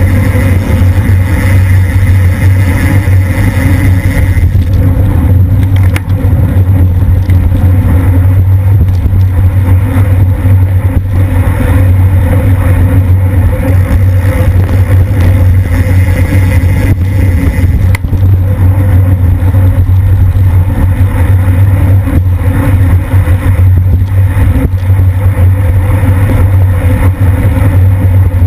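Wind rushing over the microphone of a bike-mounted camera at racing speed: a loud, steady low rumble, with a single sharp click about two-thirds of the way through.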